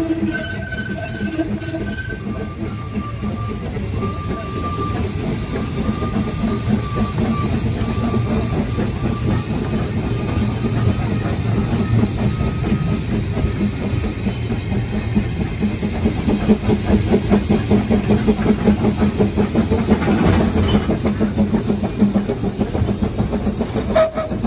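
Narrow-gauge steam locomotive heard from its own footplate, running slowly, with a quick, even clatter from wheels and motion that grows louder in the last several seconds. A faint high squeal runs over the first dozen seconds.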